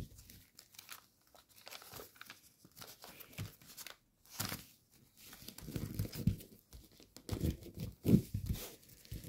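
Gold foil origami paper crinkling and rustling in the fingers as its flaps are folded up and creased, in short irregular scrunches: sparse at first, one sharper crinkle about four and a half seconds in, then busier and louder in the second half.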